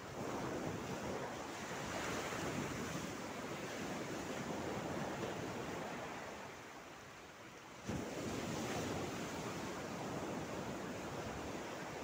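Small sea waves washing in over a pebbly, rocky shoreline, swelling and easing, with a sudden surge about eight seconds in.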